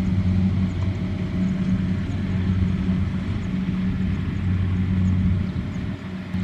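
Kubota M6040SU tractor's diesel engine running steadily under load as it pulls a heavy load of rice sacks along a muddy track, getting quieter about five and a half seconds in.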